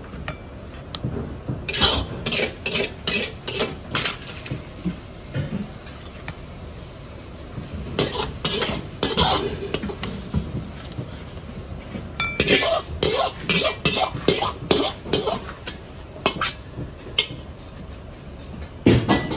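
A metal ladle and hard stones clacking and scraping against a porcelain bowl as stir-fried stones are served. The sound comes as several runs of sharp clinks with gaps between them.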